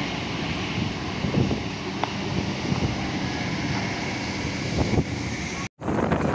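Heavy diesel machinery running steadily under load, with wind noise on the microphone and a few knocks. Near the end the sound cuts out completely for a split second, then resumes.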